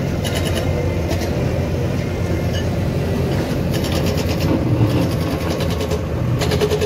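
Diesel engine of a JCB backhoe loader running steadily under load while digging, with short bursts of rapid rattling a few times, loudest near the middle and near the end.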